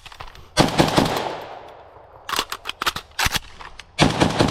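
Three rapid strings of gunshots, a few shots each and about a second apart, each string trailing off in a long echo.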